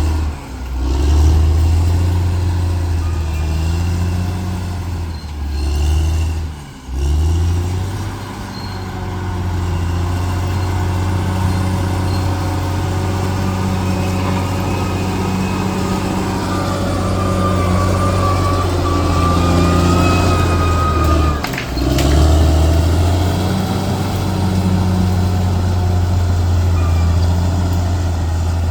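Bulldozer's diesel engine running steadily under load, dipping briefly about three times. A higher whine joins for a few seconds a little past the middle.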